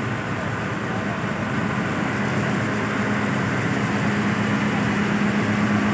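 A truck engine running steadily, its low hum growing a little louder over the last few seconds.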